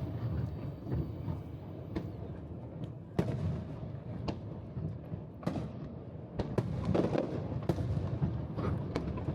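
Aerial fireworks bursting in quick succession: about ten sharp bangs at uneven gaps of roughly a second, the loudest a little after three seconds in, over a steady low rumble.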